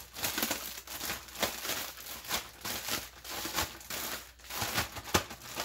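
A zip-top plastic bag full of marinated chicken crinkling and rustling as gloved hands handle it, with a few sharper crackles.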